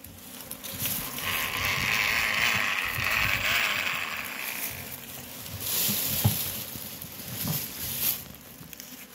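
Beekeeper's bellows smoker puffing smoke: a long breathy hiss starting about a second in, then two shorter whooshes later on.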